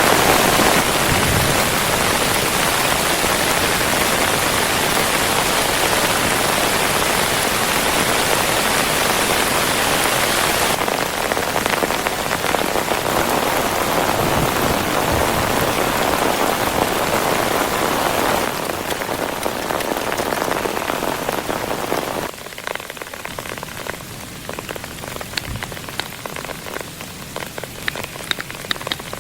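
Rain falling steadily and heavily, dropping abruptly in level three times and lighter near the end, where separate drops can be heard pattering.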